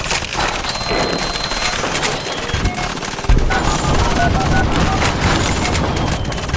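Rapid, dense gunfire with a sudden louder, deeper burst about three seconds in, mixed with a melody of short notes.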